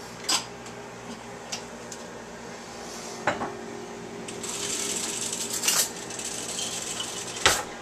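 Stainless steel pots and lids being knocked and shifted in a cabinet: several separate metallic clanks with a short ring, the loudest near the end. A stretch of hiss in the middle.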